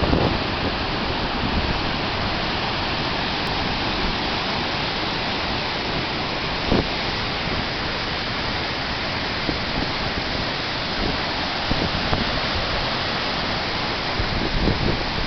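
Cascada Paine waterfall: the loud, steady rush of falling water, with a few brief low bumps of wind on the microphone.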